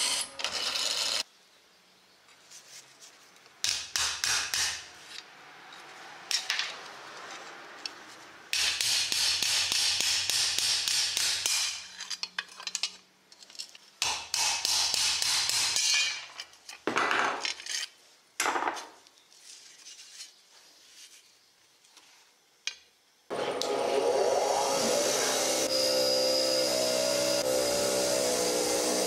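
Bursts of metalworking on a steel shovel blade, knocks and scraping with short quiet gaps between them. About 23 seconds in, a bench grinder starts running steadily with a hum, and its spinning wire wheel hisses against a steel bolt held to it.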